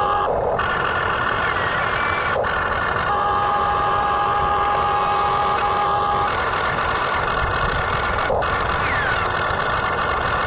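Radio-controlled backhoe excavator running steadily with a machine hum. A steady whine sounds from about three to six seconds in, and the sound breaks off briefly three times.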